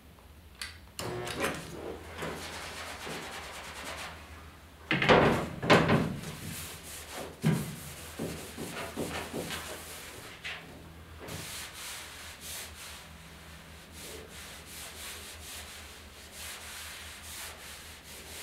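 Paper towel rubbing and wiping across a steel truck hood as the freshly shrunk spot is cooled and cleaned, with a few loud knocks about five to six seconds in and another near seven and a half seconds.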